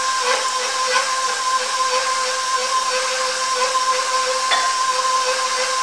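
Electric stand mixer running with a steady motor hum and a constant whine, its flat beater creaming butter and sugar.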